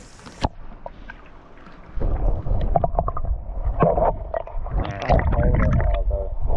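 Water sloshing and splashing around a kayak, louder from about two seconds in, under a low rumble of wind on the microphone.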